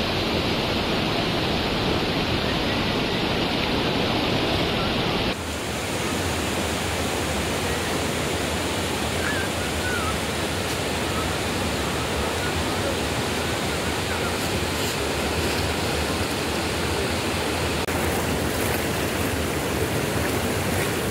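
Fast, shallow river rushing over rocks: a steady, even wash of water noise. Its tone changes abruptly about five seconds in.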